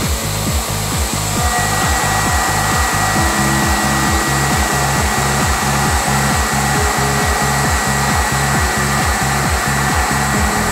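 Heller CP8000 machining center drilling cast iron with a 90 mm solid drill with carbide inserts under coolant spray: a steady hiss of cutting and coolant, with a thin high whine that sets in about one and a half seconds in. Background music with a steady beat runs underneath.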